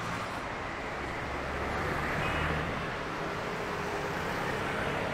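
Busy city street ambience: a steady wash of road traffic, with a motor vehicle's engine running nearby and swelling slightly about two seconds in.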